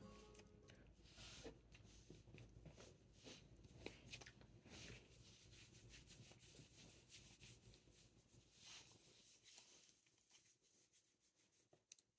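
Near silence with faint soft rubbing and light ticks from hands stroking a small dog's fur, dying away in the last couple of seconds.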